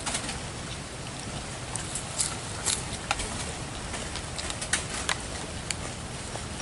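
Close-up mouth sounds of someone eating: chewing with irregular wet smacks and clicks over a steady background hiss.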